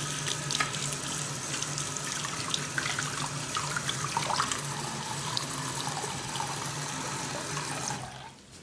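Bathroom sink faucet running, a steady stream of water splashing into the basin, turned off near the end.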